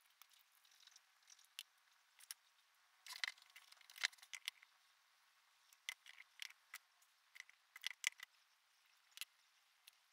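Faint handling noise from sculpting work on a clay figure: scattered small clicks and scrapes, bunched into two clusters a few seconds apart.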